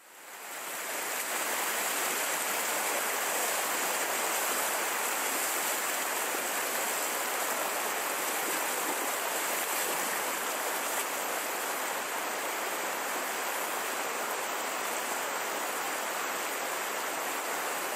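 Fast, shallow river rushing over rocks in riffles and rapids, a steady broad rushing noise that fades in over about the first second.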